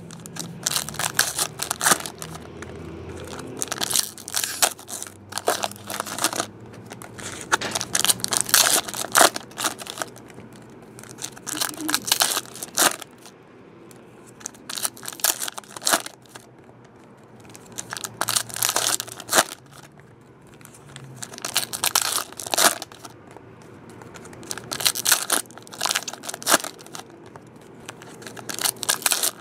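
Trading-card pack wrappers being torn open one after another, crinkling and tearing in bursts every two to three seconds.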